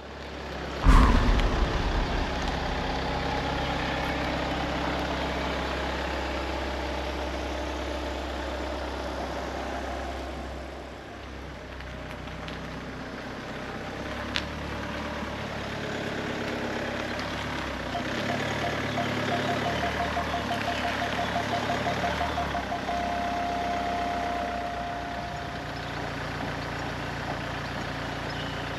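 SUV engine idling while it reverses slowly up to a caravan's drawbar. Its parking sensor beeps ever faster and then holds a steady tone as the tow hitch closes on the coupling. There is a loud thump about a second in.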